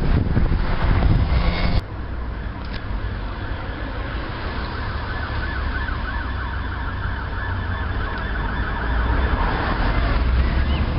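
Wind buffeting the microphone, cut off abruptly about two seconds in. Then a faint siren sweeping rapidly up and down over a steady low traffic rumble, through the middle of the stretch and fading near the end.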